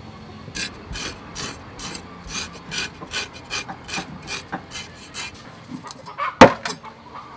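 Rhythmic scraping strokes along a garfish on a wooden chopping block, about two or three a second, then a single hard cleaver chop into the block about six seconds in, the loudest sound.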